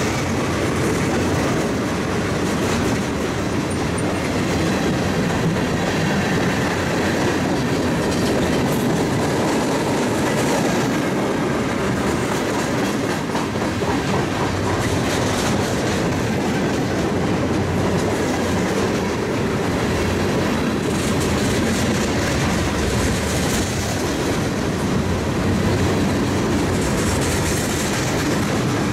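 Freight train cars (boxcars and a centerbeam lumber flatcar) rolling past at close range: a steady rumble and clatter of steel wheels on the rails.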